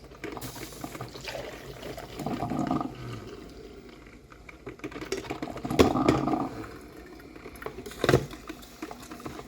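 Freshly brewed coffee being poured into a mug in a couple of stretches, with a sharp knock about eight seconds in.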